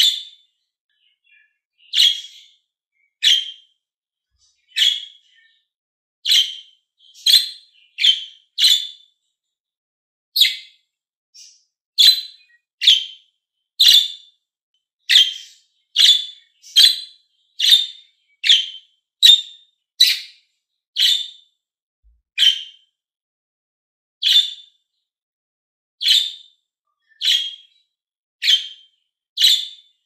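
Pet budgerigar giving short, sharp, high chirping calls, one after another at about one a second, with a few pauses of a second or two.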